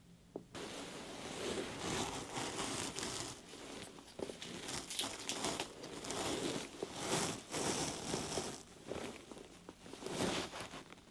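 Close, irregular rustling and crinkling of clothing and gear being handled right next to the microphone, starting about half a second in, with many short sharp crackles.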